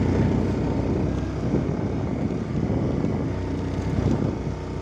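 A vehicle's engine running steadily while driving on an off-road track, with some wind noise on the microphone.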